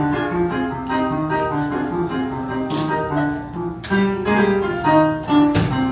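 Piano playing a quick, steady-rhythm accompaniment tune. Near the end come a couple of sharp knocks.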